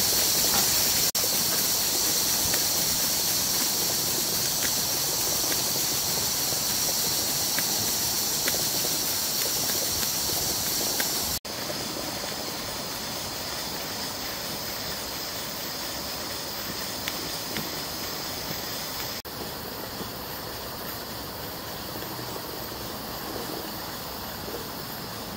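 Stuart 10H model steam engine running on steam, giving a steady hiss of steam. The level drops suddenly about eleven seconds in, and the hiss carries on more quietly.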